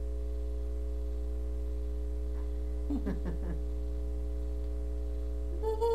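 Steady electrical hum with faint steady tones above it, as on an old home-video tape, with a brief gliding voice-like sound about three seconds in.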